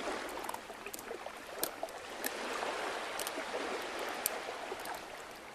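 Water lapping and trickling around a moored boat, with a few faint clicks and knocks.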